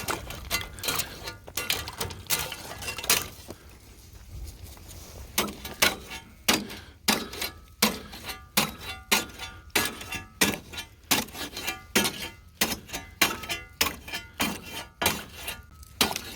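Thin ice on a livestock water trough being broken up: repeated sharp cracking and clinking strikes, a few at first, then about two a second through the second half.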